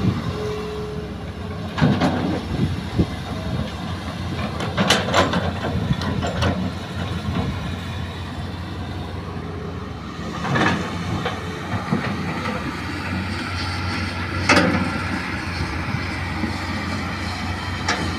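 Hitachi hydraulic excavator's diesel engine running steadily under load while it digs into an earth bank, with clattering bursts from the bucket scraping into soil and rock several times, loudest about five and fourteen seconds in.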